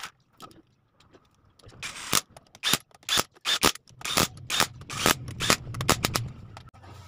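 Cordless impact wrench hammering in a string of short bursts, driving home the bolts of the motorcycle engine's side cover. It starts about two seconds in and stops shortly before the end.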